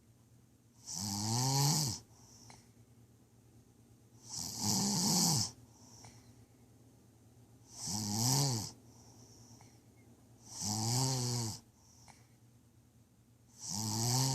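Steady snoring: five snores about three seconds apart, each a buzzing intake whose pitch rises then falls, with a faint breath out between them.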